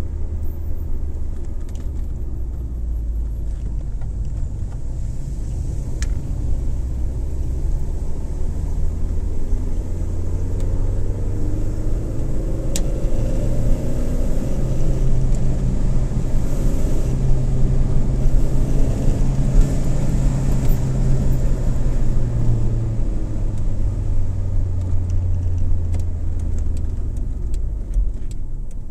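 Car driving, heard from inside the cabin: steady engine and tyre rumble. The engine note climbs and grows louder through the middle, then eases off near the end, with a couple of faint clicks.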